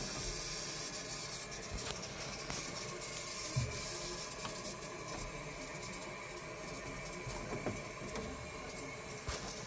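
Steady hiss of mains water running through the filling loop into a combi boiler's heating system as it is refilled, with a few faint knocks.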